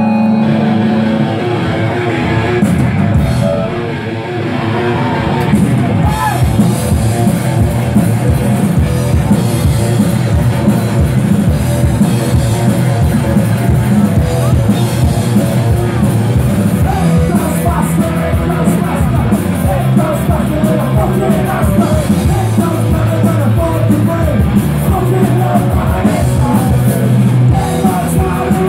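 Live punk rock band playing: electric guitar, bass and drums with a sung lead vocal. A held chord rings for the first few seconds and dips about four seconds in, then the full band comes in and plays on steadily.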